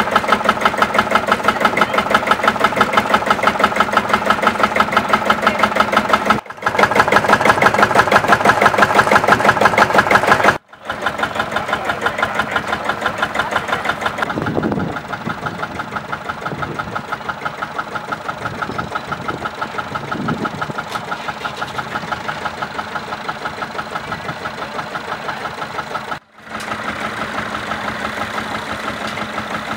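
Field Marshall single-cylinder two-stroke diesel tractor engine running at idle with a regular pulsing beat, in several takes split by brief cuts. Near the end, after a cut, Massey Ferguson 165 tractor engines idle.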